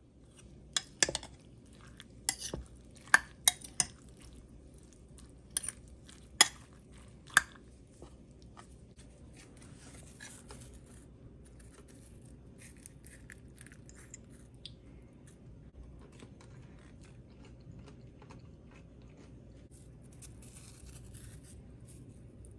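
Metal spoon knocking against a bowl of fresh salsa, several sharp clinks in the first seven seconds or so, then faint scraping and rustling as a tortilla chip is dipped and scooped through the chopped tomato and onion.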